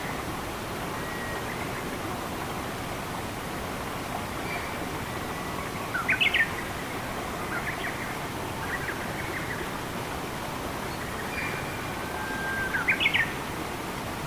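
Steady rush of flowing water with small birds calling over it: thin level whistles, and two short loud runs of quick rising notes about six seconds in and again near the end.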